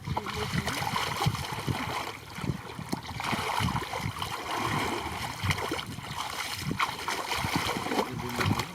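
Water splashing and sloshing, with irregular soft low knocks throughout.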